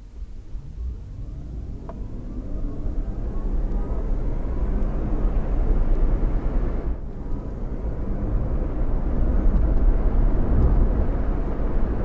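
Truck engine pulling away and accelerating, its pitch rising, then a brief break about seven seconds in, like a gear change, before it climbs again.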